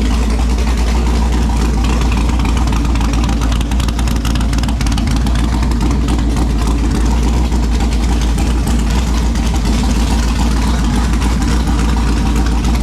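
Texas Speed 416 ci LS3 V8 running at a steady idle.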